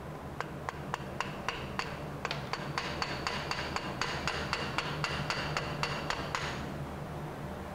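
Quick run of metal-on-metal taps with a bright ring, about four a second: a tool striking the cast-aluminium AC compressor to knock it off a stuck, corroded alignment dowel. The tapping stops shortly before the end.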